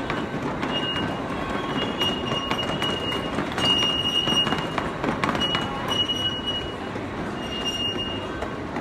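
Miniature ride-on train rolling along its track with a steady rumble, its wheels giving about five short high-pitched squeals, the loudest about four seconds in.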